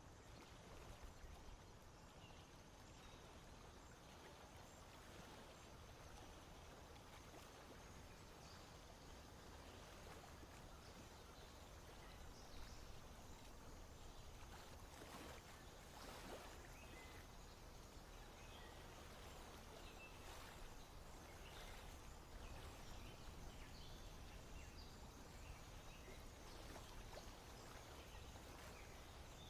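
Near silence: faint outdoor ambience with low rumble and scattered faint chirps.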